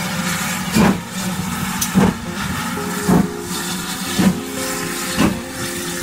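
GWR Manor class two-cylinder 4-6-0 steam locomotive 'Dinmore Manor' working slowly past, giving five exhaust chuffs about a second apart over a steady hiss of steam.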